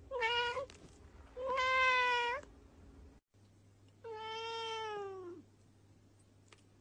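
Cat meowing three times: a short meow, a longer one, then a long meow that falls in pitch.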